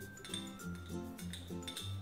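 Background music with a rhythmic bass line and bright, bell-like plucked notes.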